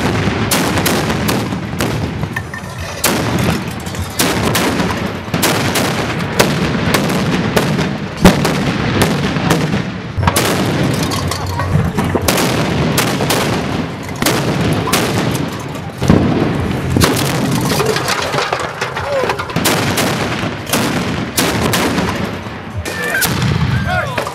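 Carbide shooting: a row of milk churns charged with calcium carbide gas firing one after another. They make dozens of loud, sharp bangs in a fast, irregular series, each with a short echo.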